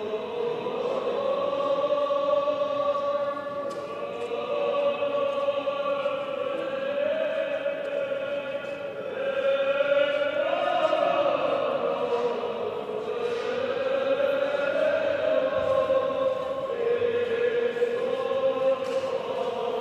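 Liturgical chant sung by a choir, in long held notes that step slowly up and down.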